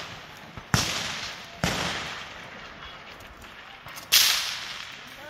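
Three shots from a precision rifle fitted with a muzzle brake: two about a second apart, then a third about two and a half seconds later. Each report rings off across the range for about a second.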